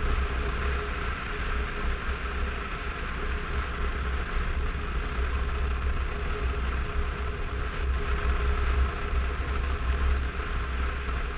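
Motorcycle engine running at a steady road speed, recorded from a helmet camera, with wind rumbling on the microphone as the loudest part. The sound holds steady throughout, with no gear changes or revving.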